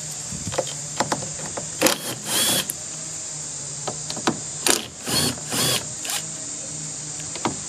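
Bosch cordless drill/driver with a socket spinning out the 10 mm mirror mounting bolts in several short trigger bursts, its motor whine rising and falling in pitch with each pull. A few sharp clicks come between the bursts.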